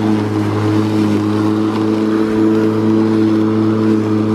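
Makita DLM382 battery-powered lawn mower running under load as it is pushed through grass: its motor and spinning blade give a steady hum.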